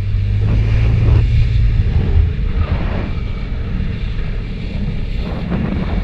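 Motorcycle engine running steadily as the bike rides along, with wind buffeting the microphone.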